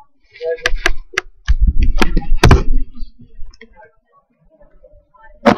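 Handling noise from a phone camera being moved about: a series of sharp clicks and knocks, a loud low rumbling stretch in the middle, and one loud knock near the end.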